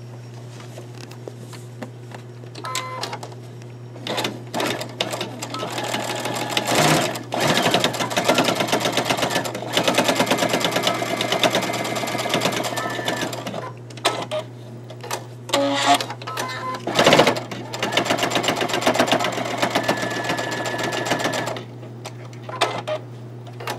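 Baby Lock Ellisimo II computerized sewing machine stitching a dart through fabric and cotton batting: the fast, steady rattle of the needle running in two long stretches, with a pause and a few sharp clicks between them.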